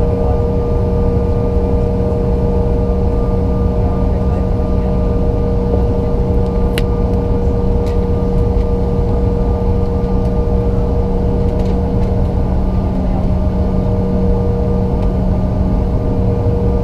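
Inside the cabin of a Bombardier CRJ-900LR, its rear-mounted General Electric CF34 jet engines running steadily: an even roar with a constant hum and whine. A single sharp click about seven seconds in.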